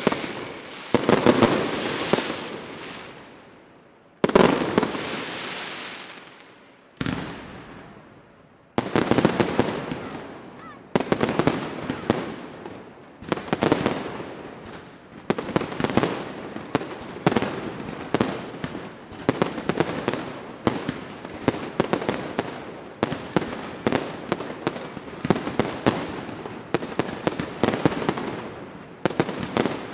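Fireworks exploding: a few separate loud bangs, each trailing off in a crackle, then from about nine seconds in a rapid barrage of several bangs a second.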